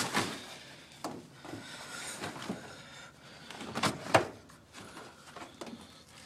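Wet laundry being handled and moved into a tumble dryer: cloth rustling with irregular knocks and thumps, the loudest a pair of sharp knocks about four seconds in.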